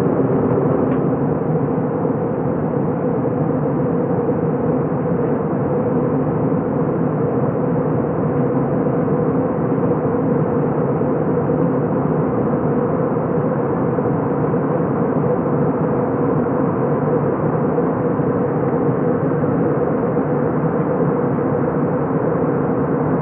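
Steady cabin noise inside an Airbus A321 airliner in flight, heard from a seat over the wing: jet engine drone and rushing air with a steady hum running through it.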